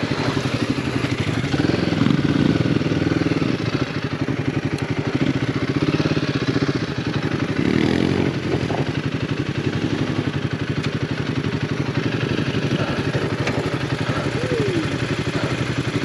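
Royal Enfield Himalayan 450's 452 cc single-cylinder engine running steadily at low revs, with a couple of brief changes in engine speed.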